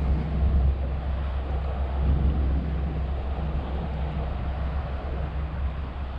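Wind buffeting an action camera's microphone: a steady low rumble with a faint hiss.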